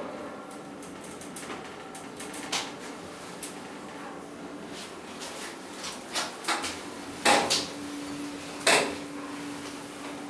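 SMW inclined elevator cabin travelling: a steady low hum with scattered clicks and rattles of the cabin, and two sharp clunks in the second half, about a second and a half apart.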